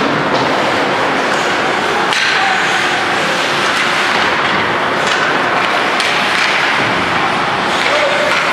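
Ice hockey play: a steady din of skates on the ice and rink noise, with sharp clacks from sticks and puck several times.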